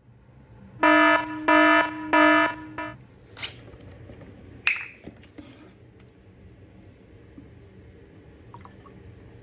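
An alarm beeping three times in quick succession, followed by a few clicks and rustles.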